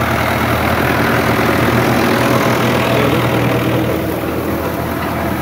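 Tractor engine running steadily under load as it pulls a peanut digger through the soil, a little louder in the middle.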